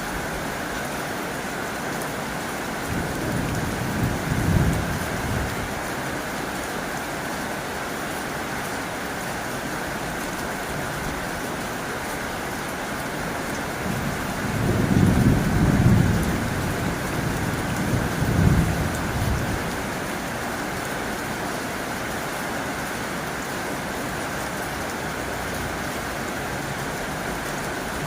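Heavy rain falling steadily on a tin roof. Two low rumbles swell and fade beneath it, one about three seconds in and a longer one in the middle.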